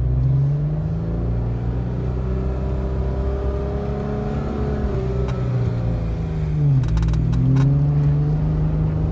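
4x4 engine running under load while driving over sand dunes, its revs slowly easing down, dropping sharply a little before seven seconds in, then climbing again, with a few short knocks at that moment.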